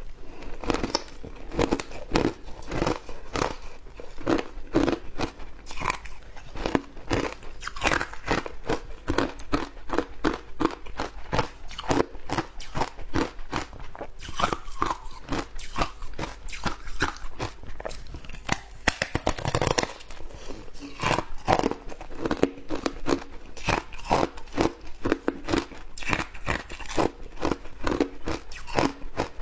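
Shaved ice being bitten and chewed close to the microphone: a rapid, irregular run of sharp crunches several times a second.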